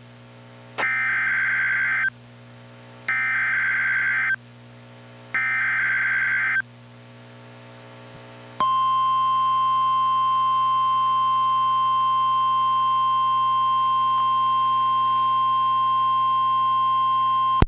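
NOAA Weather Radio EAS activation: three short, buzzy SAME digital header bursts about a second apart, then the steady 1050 Hz warning alarm tone starting about halfway through. Together they mark the start of a new warning broadcast.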